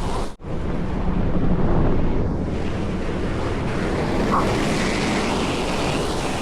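Wind rushing and buffeting against the microphone, a steady dense roar with a faint low hum underneath.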